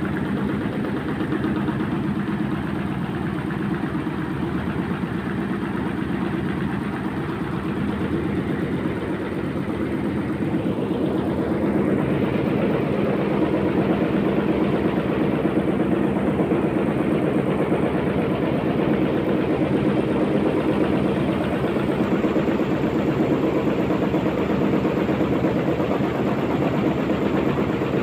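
An engine running steadily with an even pulse, growing a little louder about halfway through.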